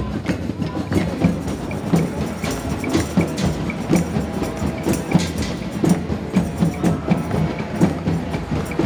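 Hand drums played together in a steady beat, about two heavy strokes a second with lighter strokes between.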